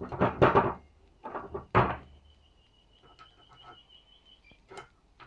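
Hand-forged iron fireplace crane bars being lifted and shifted on wooden boards: a scraping clatter in the first second, then a sharp knock near two seconds in. After that, a thin high tone holds for a couple of seconds under a few light clicks.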